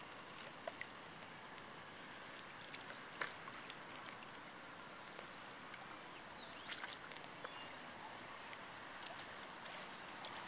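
Quiet river water flowing and lapping in the shallows at the shore, a steady soft wash, with a few faint clicks and light knocks now and then.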